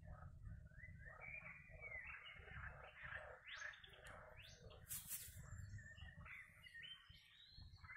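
Faint chorus of frogs croaking, mixed with birds chirping, many short overlapping calls throughout; a brief click about five seconds in.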